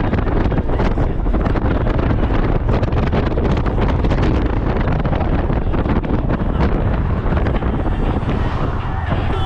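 Wind blasting across the microphone on a moving Honda Gold Wing motorcycle, a steady low rush with constant crackling buffets over the road and engine noise underneath.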